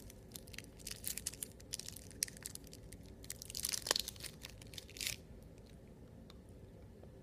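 Candy wrapper crinkling and tearing as it is pulled open by hand, in quick irregular crackles that are loudest about four seconds in and stop about five seconds in.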